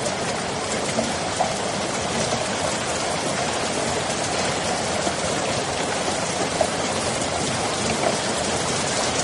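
Steady rain falling, an even hiss with a few sharper drop ticks now and then.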